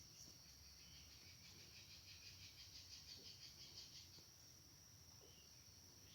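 Near silence: a faint steady high hum, with a faint rapid high chirping trill from about a second and a half in until about four seconds in.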